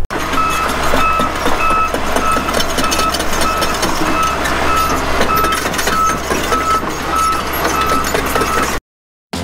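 Heavy machinery running, with a steady low engine hum and a reversing alarm beeping about twice a second. Throughout, dense cracking and crunching: timber of an old log building being pulled down. It all cuts off abruptly near the end.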